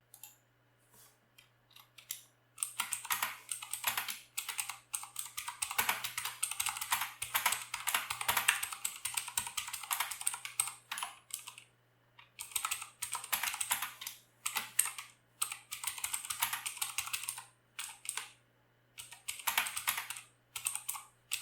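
Fast typing on a Vortex Pok3r 60% mechanical keyboard with clicky Cherry MX Blue switches: dense runs of sharp key clicks, starting about two seconds in, with brief pauses between bursts.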